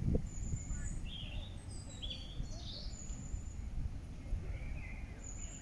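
Birds calling: a thin, high, steady whistle three times, each held under a second, with shorter chirps between, over a steady low rumble. A low thump right at the start.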